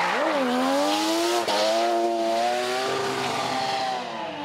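RE Amemiya's three-rotor turbo RX-7 D1 drift car sliding through a corner: the rotary engine's revs dip, climb and hold high while the rear tyres spin and squeal in a cloud of smoke, with the revs dropping again near the end.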